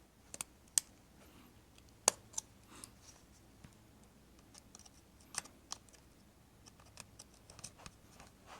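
Irregular sharp clicks and small plastic snaps from a 2015 MacBook Pro keyboard being worked loose from its riveted mounting, the loudest snap about two seconds in.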